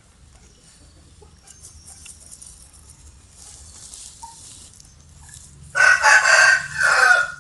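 A rooster crows once, loudly, near the end, after several seconds of faint background. The crow lasts about a second and a half, with a brief break before its last note.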